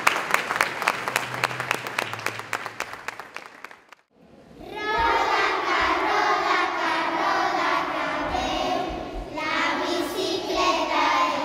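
Applause from a small crowd, fading over the first few seconds and cut off; after a brief gap, a children's choir starts singing and continues to the end.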